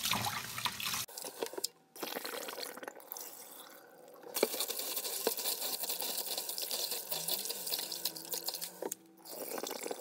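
Rice being washed by hand in a plastic bowl under a running tap: water splashing and sloshing as the grains are rubbed to rinse off their starch. The splashing comes and goes, with quieter spells.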